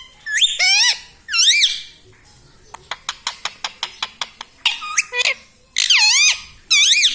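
Ring-necked parrot giving loud, wavering high-pitched calls, two in the first two seconds and three more in the second half. Between them comes a run of about ten quick sharp clicks, about five a second.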